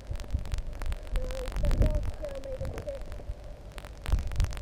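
Wind buffeting the action camera's microphone: irregular low rumbling thumps, loudest a couple of times, over a faint wavering tone.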